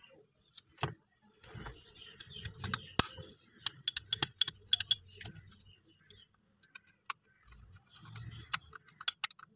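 Irregular sharp clicks, knocks and rattles of hard parts being handled and fitted together, in uneven clusters with short pauses.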